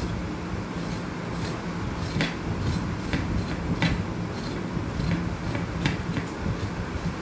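Knife scraping the skin off a vegetable: short, sharp scraping strokes at irregular intervals, about one every second, over a steady low hum.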